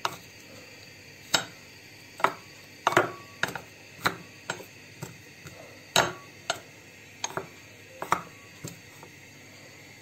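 Wooden spoon crushing garlic cloves in a stainless steel bowl: irregular knocks of the spoon against the metal, roughly two a second, some with a short ring from the bowl.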